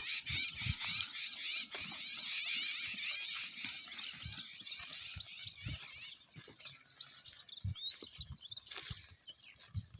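A chorus of many small birds chirping quickly and densely, busiest at first and thinning out after about six seconds, with scattered low thumps underneath.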